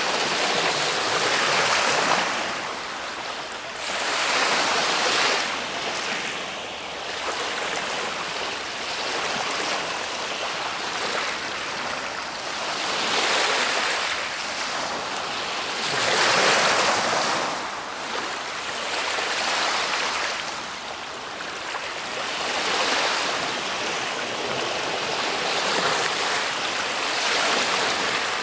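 Ocean waves washing in, a constant rush that swells and eases every three to four seconds as each wave breaks and draws back.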